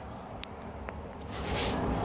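Steady low background rumble of an urban outdoor space, with a sharp click about half a second in.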